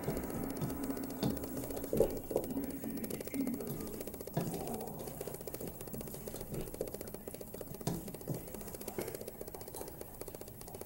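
A spoon stirring tater tots, ground beef, beans, corn and shredded cheese in a stainless steel mixing bowl: irregular scraping and clicking of the spoon against the bowl and the food.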